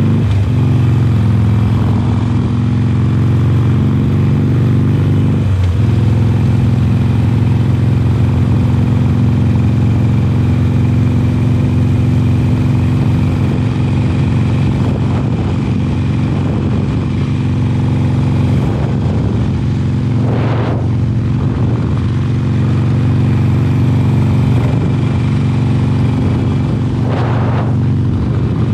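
2020 Harley-Davidson Forty-Eight's 1200 cc air-cooled V-twin breathing through Khrome Werks slip-on mufflers, running steadily at highway cruising speed. Two brief whooshes rise over it in the last ten seconds.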